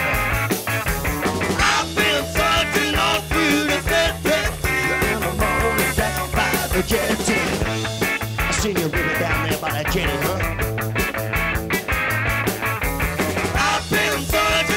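Live pub rock band playing: electric guitar, bass guitar and drums with a steady beat and choppy guitar strokes.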